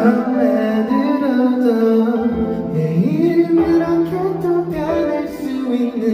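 Live pop song: sung notes gliding and held over a band accompaniment.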